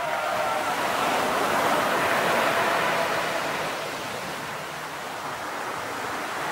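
Surf washing onto a sandy beach, a steady hiss of small breaking waves that swells in the first few seconds and eases off after about four seconds.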